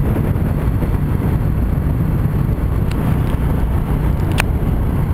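Motorbike riding along at road speed: steady engine and road noise mixed with wind rumble on the microphone. A few faint ticks come about three seconds in, and one sharp click comes near the end.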